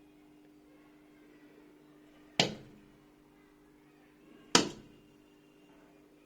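Two sharp knocks about two seconds apart, each dying away quickly, over a steady low hum.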